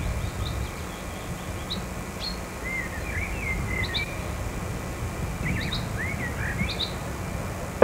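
Small birds chirping in short, scattered calls, several at a time, over a low steady rumble of outdoor background noise.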